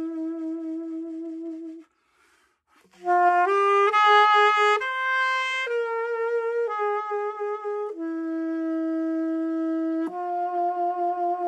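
Alto saxophone playing a slow melodic phrase. A held note breaks off for a breath pause about two seconds in, then a run of notes climbs to a higher passage, and long held notes follow near the end.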